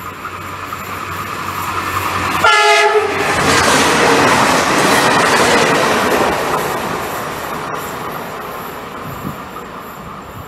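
A train sounds one short horn blast about two and a half seconds in, then runs through the station. The rumble of its wheels on the rails swells and fades away.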